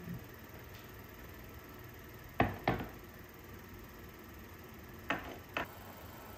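Porcelain sugar bowl, its lid and a spoon clinking: two sharp clinks about two and a half seconds in, and two more near the end.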